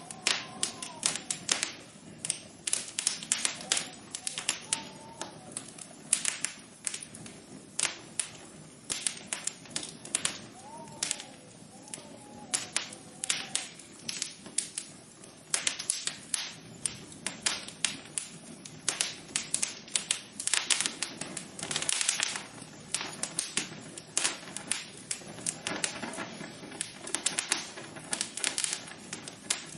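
Rapid, irregular tapping and clicking, dense and uneven throughout, with a few faint tones that rise and fall in pitch now and then.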